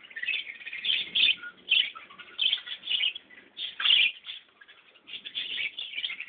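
Small birds chirping: a dense run of short, high calls, several a second, overlapping throughout.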